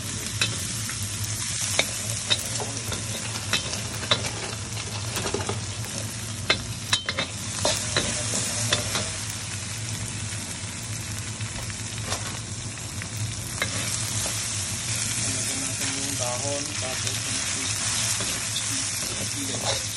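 Food frying in hot cooking oil in a pan, sizzling steadily, while a utensil stirs it and knocks against the pan a number of times over the first half.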